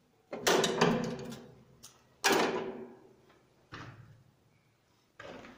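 Metal distribution board enclosure knocked and rattled by hands working inside it: two loud clattering knocks with a short ring, then two softer knocks.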